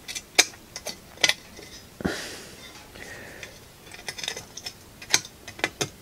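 Irregular sharp metallic clicks and taps of a metal soldering-iron sponge tray and the iron's tip knocking against drill motor wires as the wires are pressed flat, with a brief scrape about two seconds in.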